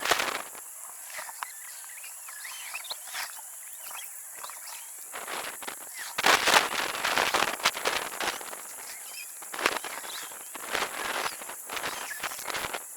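Outdoor ambience with small birds chirping over a steady high insect drone, and crunching, rustling noises that are loudest from about six to eight seconds in.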